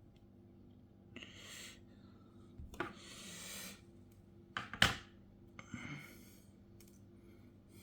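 Several soft breaths or sighs, with a few small clicks and knocks of things being handled on a work surface, the loudest a sharp knock about five seconds in, over a faint steady hum.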